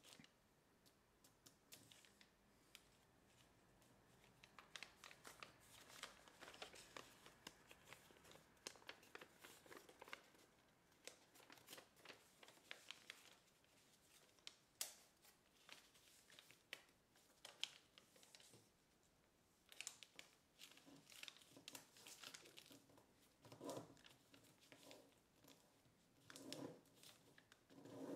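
Faint crinkling and rustling of kraft paper as it is folded and creased by hand, in many short crackles, with a few duller rubs and bumps near the end as the hands press the folded paper flat.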